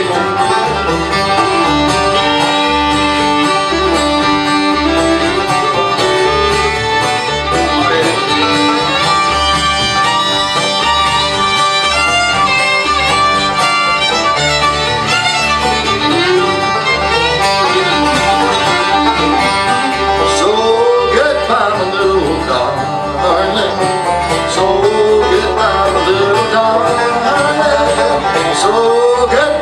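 Bluegrass band playing an instrumental break, with fiddle out front over banjo and acoustic guitar and a steady upright bass beat.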